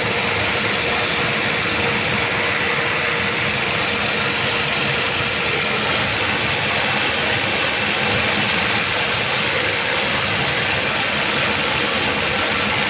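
A 3 HP, 120-bar high-pressure plunger-pump washer running steadily: a continuous hiss over a low hum, with a thin steady whine.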